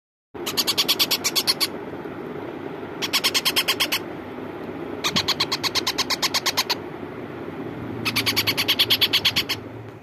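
Ringneck parakeet chicks giving begging calls: four bursts of rapid, evenly repeated chirps, about ten a second, over a steady low hum.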